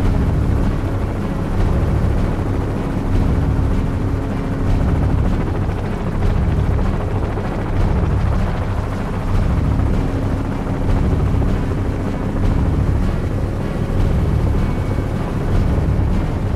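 Helicopter in flight, heard from the open gunner's door: a steady low engine and rotor drone that swells and eases about every second and a half.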